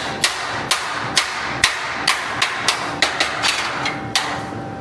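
Hammer blows on a hot iron bar being bent round in a blacksmith's jig, about a dozen sharp strikes at an uneven pace of two to three a second.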